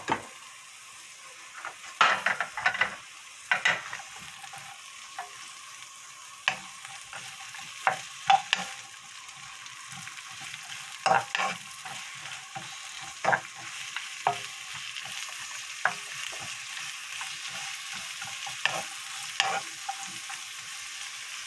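Sliced cabbage, onion, carrot and zucchini sizzling in hot oil in a nonstick frying pan over high heat, a steady hiss, with irregular clacks and scrapes of a spatula tossing the vegetables against the pan.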